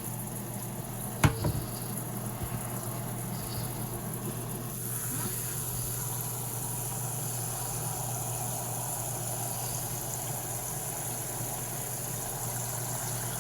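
Kitchen tap running water, a steady hiss that comes on stronger about five seconds in, with a single clank near the start.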